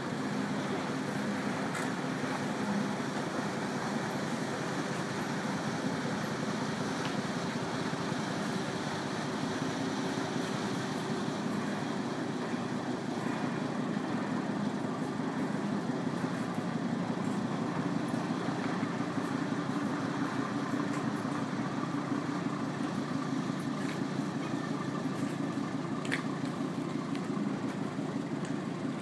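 Small car ferry's engine running in a steady drone as the ferry pulls away from the landing and heads out, its propeller churning the water.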